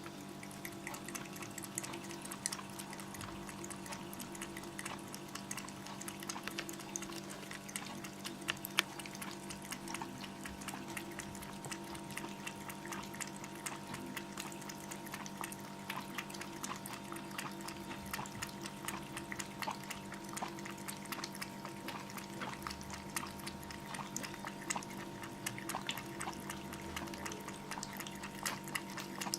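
Kittens lapping and eating: a dense run of small wet clicks over a steady hum.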